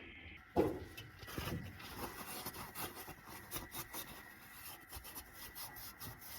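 Old gasket material being scraped off the engine's fuel pump mounting surface, with one knock about half a second in and then a run of short, quick scraping strokes.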